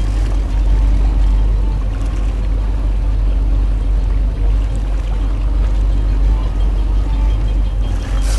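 Fishing boat's engine running steadily at trolling speed, a deep continuous rumble.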